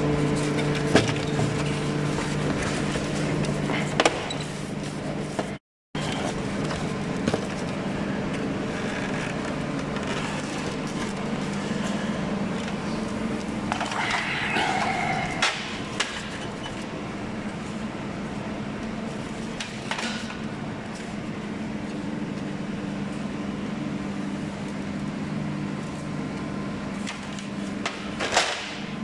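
Opel Astra H's plastic front grille being handled, with scattered clicks and knocks of plastic, over a steady machine hum.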